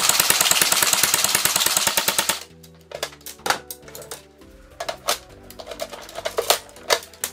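Airsoft gun firing a long full-auto burst of rapid, even shots that stops abruptly about two seconds in, followed by scattered single clicks over background music.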